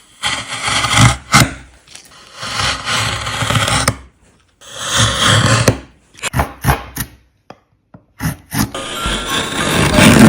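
Carving tool scraping and cutting into wood in strokes: three long strokes of a second or more, then a run of short, quick strokes, then another long stroke near the end.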